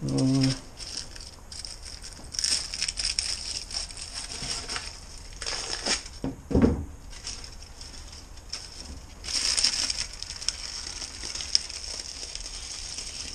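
Aluminium foil crinkling and tearing as cured fiberglass panels are peeled off their foil-wrapped moulds, in several separate rustling bursts. One thump about halfway through.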